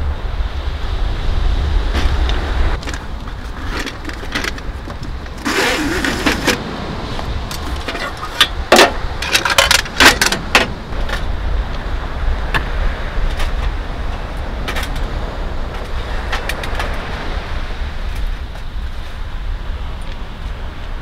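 Steady low rumble of wind, with metal clinks and clattering of aluminium camp cookware as a pot is handled and set on a camp-stove windscreen, loudest in a cluster about eight to ten seconds in.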